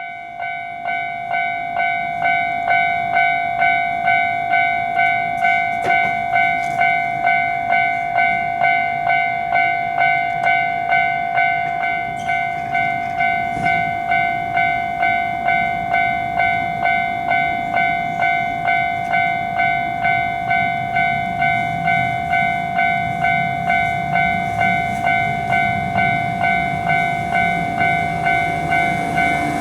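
Japanese level-crossing warning bell (the 'kan-kan' alarm) starting up and ringing steadily, about three strikes every two seconds. A train's low rumble builds underneath in the second half.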